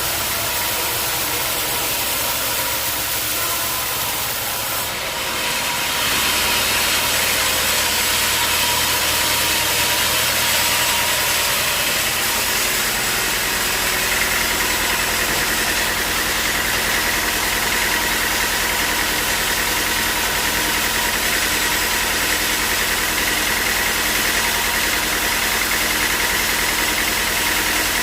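Sawmill machinery running steadily. The sound shifts and grows slightly louder about five seconds in, and a steady higher whine joins at about fourteen seconds.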